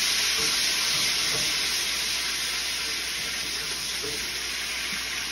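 Garlic and olive oil in a skillet sizzling after a ladle of pasta water has been poured in to stop the garlic cooking, the sizzle slowly dying down.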